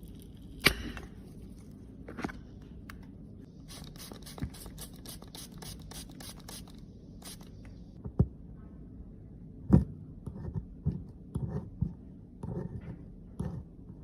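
Close-up handling of makeup and repair tools: a few sharp clicks and taps, with a run of quick scraping strokes, about four a second, in the middle.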